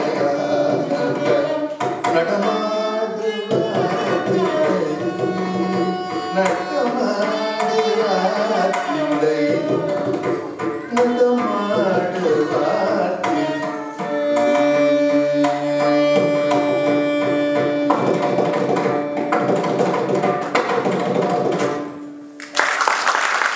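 Carnatic vocal music in raga Purvikalyani: a male singer with drum accompaniment, the voice moving through ornamented phrases and held notes over the percussion strokes. The music ends about 22 seconds in and applause breaks out near the end.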